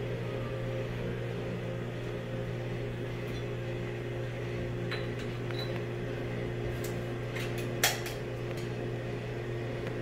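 Café room tone: a steady electrical hum from running appliances, with a few light clinks of crockery in the second half, the loudest about eight seconds in.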